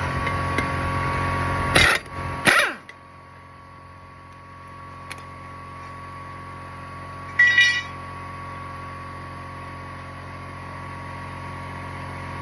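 Air compressor running with a steady motor hum, louder for the first couple of seconds and then lower. It is broken by two short, loud bursts about two seconds in and another about halfway through.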